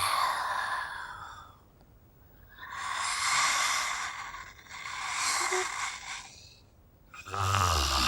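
Female zombie sound effects: a raspy, breathy exhale fading out, then two drawn-out hissing breaths, each about a second and a half long. Near the end a new one starts with a low growl under the hiss.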